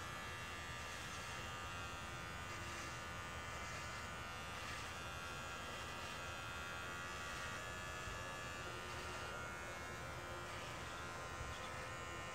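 Electric hair clippers buzzing steadily as they shave a man's head down close, passing back over the scalp to catch leftover patches of hair.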